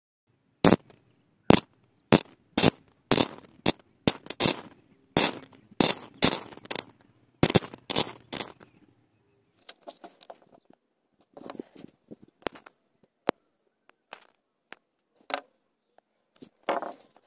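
Electric arc from a homemade 12-volt battery welder snapping and crackling as its iron nail electrode is struck against metal: a dense run of sharp, irregular snaps for about eight seconds, then scattered fainter clicks and crackles.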